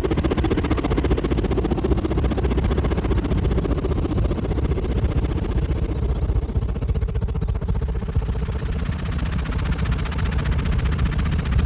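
Designed sci-fi passby sound effect: a dense, rumbling engine-like drone with a steady low hum underneath. Its higher part thins out about halfway through, then fills back in toward the end.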